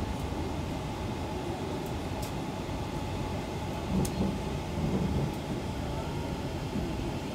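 Steady low rumble of a vehicle interior, with a few faint clicks and knocks.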